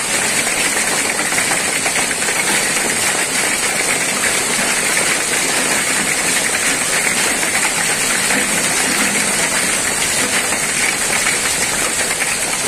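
Hail and rain falling, a dense, steady hiss of countless small impacts on the ground.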